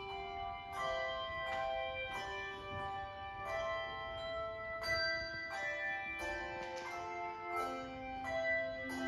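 Handbell choir ringing a piece: chords of handbells struck together every second or so, their tones ringing on and overlapping.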